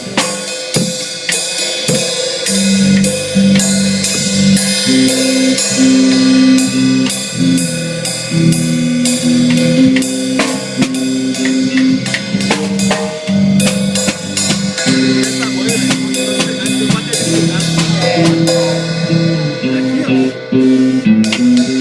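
A band playing an instrumental passage: a drum kit keeps a busy beat of snare and bass drum hits over a moving bass line of held notes.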